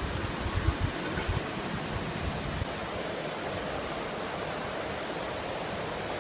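Steady rush of a waterfall, an even hiss of falling water with no break, with a few low bumps in the first second.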